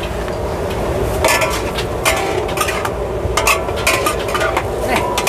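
Metal ladle and tongs clanking and scraping against a large aluminium wok as rice vermicelli noodles are tossed in a stir-fry. The clanks come irregularly, each with a short metallic ring.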